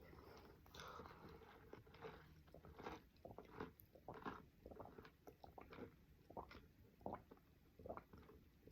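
Faint chewing of a sandwich: a person's mouth working through food with many small, irregular wet clicks and crunches.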